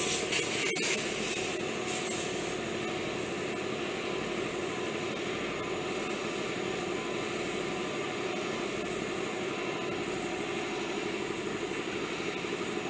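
Airbrush hissing in short bursts of spray during the first couple of seconds, over a steady machine hum.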